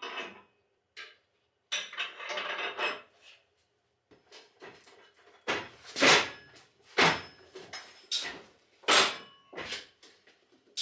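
Loose metal hardware clinking and rattling, then a run of sharp, ringing knocks about once a second as parts are struck or tightened on the winch mount.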